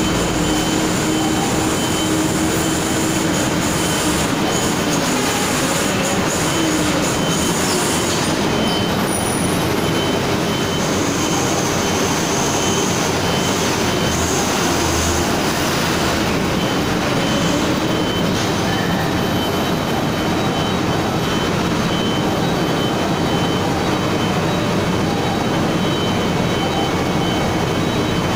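Truck diesel engines running and pulling up a ramp inside a ferry's enclosed car deck, over a loud, steady machinery din with a constant high whine. The engine pitch rises and falls slowly as the trucks move.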